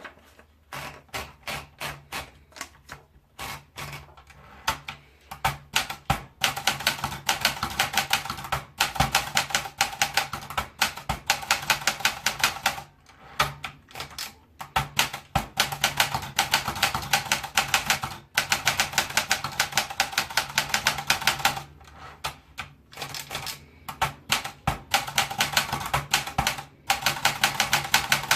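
Olympia Splendid 33 manual portable typewriter being typed on: slow, separate keystrokes at first, then fast runs of keystrokes broken by a few short pauses.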